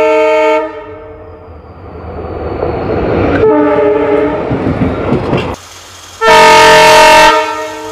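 Train horn sounding, a long blast that stops just under a second in, followed by the rising rumble of an approaching train with a second, shorter horn blast in the middle. The sound drops away suddenly, then a loud horn blast about a second long sounds near the end.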